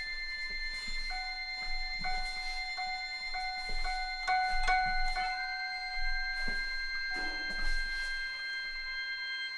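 Live instrumental ensemble music: one high note repeated over and over at about half-second intervals above steady high sustained tones, giving way to a long held note about five seconds in, with a few soft low thuds.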